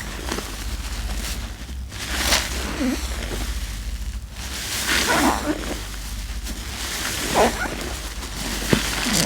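Sponge being squeezed and worked in thick laundry-soap lather, with several wet squelches a couple of seconds apart.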